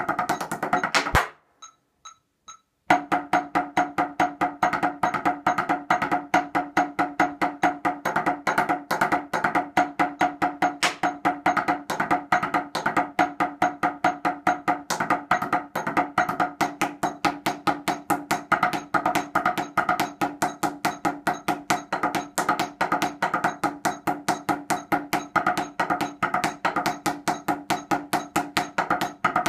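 Drumsticks playing a fast, continuous stream of strokes on a table-top set of five practice pads, a drumline practice exercise. About a second in the playing stops for under two seconds, leaving only faint, evenly spaced ticks, then starts again and runs on without a break.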